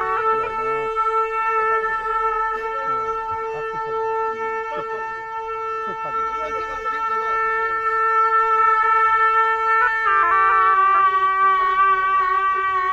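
Tibetan gyaling (ceremonial double-reed horns) playing long held notes, the pitch stepping down a little about ten seconds in, with two notes briefly sounding together.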